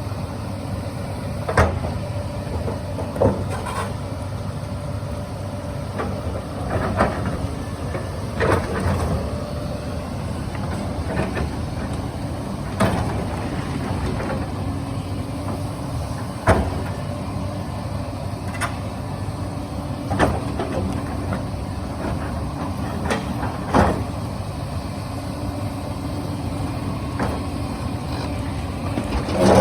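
Hyundai 220 excavator's diesel engine running steadily, with about a dozen sharp knocks at irregular intervals from the bucket working large stones.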